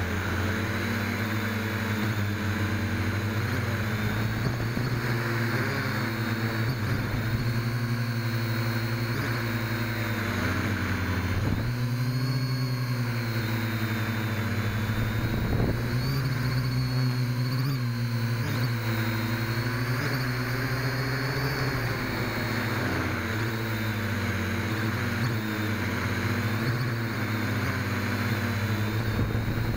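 Small quadcopter's motors and propellers buzzing, heard from its own onboard camera, the pitch rising and falling as the throttle changes.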